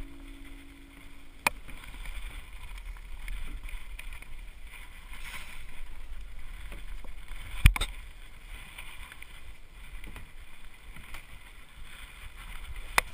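Rumbling, rustling handling noise from a body-worn camera on a climber moving over bouldering-wall holds. Three sharp knocks stand out, the loudest about halfway through.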